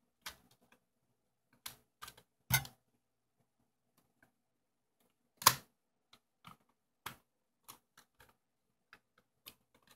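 Plastic back cover of a Nikon Coolpix L820 camera being pressed onto the body by hand: a scattering of small clicks and snaps at irregular intervals as its edges seat, the loudest about five and a half seconds in.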